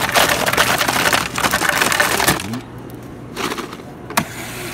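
Soda fountain ice dispenser dropping ice into a plastic cup: a loud, dense rattle that stops about two and a half seconds in. A short sharp click comes near the end.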